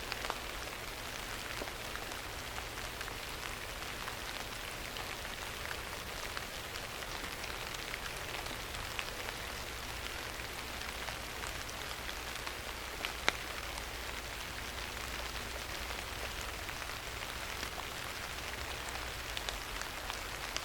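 Steady rain falling in an oak forest, with a dense patter and scattered individual drops; one louder drip about 13 seconds in.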